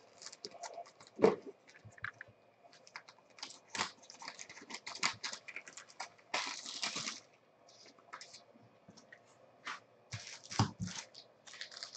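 Clear plastic card wrapper crinkling in the hands: irregular soft crackles and clicks, with a louder knock about a second in and another near the end.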